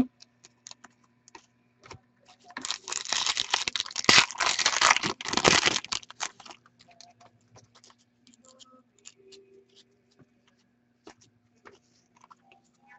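A hockey card pack's wrapper being torn open, a dense scratchy rustle lasting about three seconds, followed by scattered light clicks and taps of cards being handled.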